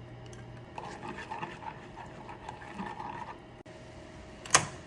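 Quiet kitchen handling noise, then a single sharp clack of a utensil or dish against a hard surface near the end.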